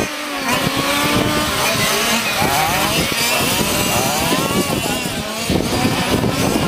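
Several radio-controlled racing trucks running on a circuit: their small high-revving engines whine together, pitch rising and falling in overlapping waves as they accelerate out of and slow into the corners.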